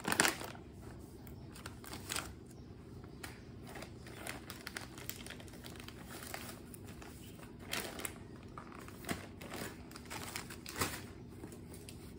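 Crinkling and rustling of a disposable diaper and its plastic package being handled, in irregular bursts, loudest right at the start.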